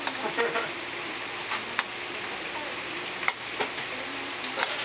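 Tteokgalbi patties sizzling steadily on a flat steel griddle, with a few sharp clicks of metal tongs against the griddle.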